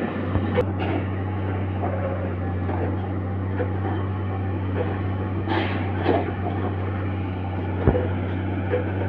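Steady low hum of railway machinery, with scattered knocks and clanks and one sharp knock near the end.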